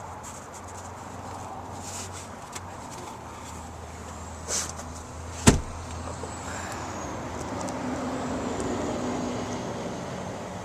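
Handling and movement noises inside an SUV's cabin over a steady low hum: light rustles and taps, with one sharp click about five and a half seconds in as the loudest sound.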